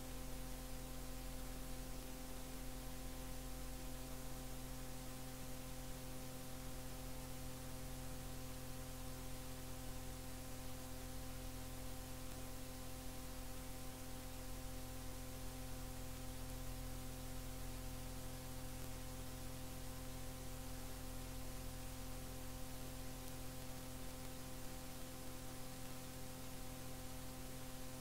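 Faint steady electrical hum, a low buzz with several fixed tones, over an even hiss from the cassette transfer. No programme sound, and nothing changes throughout.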